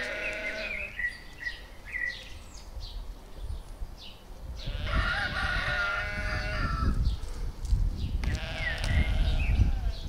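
Chickens calling: long drawn-out calls at the start, in the middle and near the end, with short high peeps between them and a low rumble underneath.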